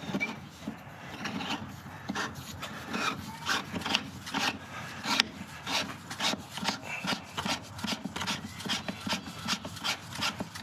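Irregular rubbing and scraping, several strokes a second, from a hand handling an oil catch can and its rubber hoses in an engine bay.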